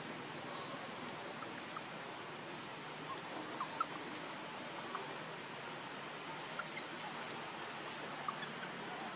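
Steady outdoor background hiss with a few short, faint chirps scattered through it, the clearest a pair of quick chirps a little under four seconds in.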